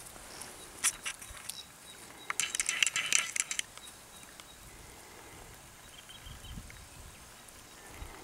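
Vervet monkey picking at acacia bark with its fingers to get at the gum: a few sharp crackles about a second in, then a dense run of scratchy clicking from about two to three and a half seconds in.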